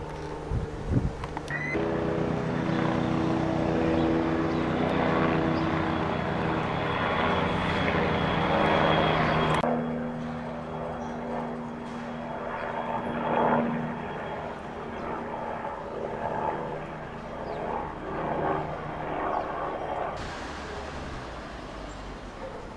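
An engine running steadily, its pitch changing abruptly about ten seconds in.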